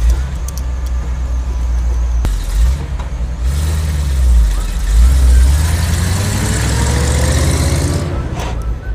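Tow truck engine sound effect: a truck engine running with a deep rumble, then revving up with a rising pitch from about the middle.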